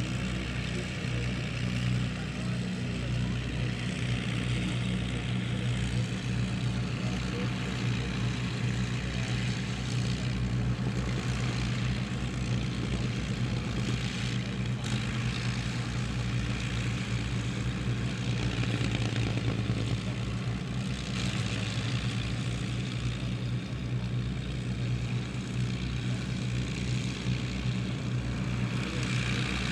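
Avro Lancaster's four Rolls-Royce Merlin V12 engines running steadily on the ground, a deep, even drone.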